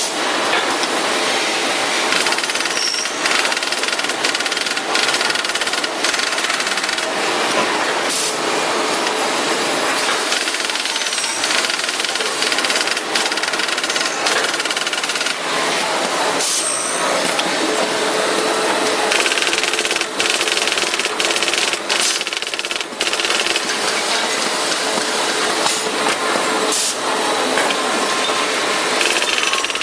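Three-axis CNC key numbering and cutting machine running while machining a metal key blank. It gives a steady, dense grinding noise with many small clicks throughout.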